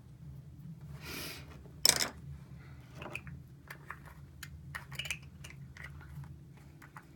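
Small clicks and rustling from a makeup item being handled, with one sharp loud click just before two seconds in, over a low steady hum.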